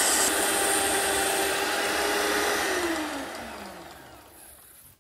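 Hand-mixer motor driving a homemade strip sander's belt at full speed with a steady whine, then winding down about two and a half seconds in, its pitch falling as it slows to a stop.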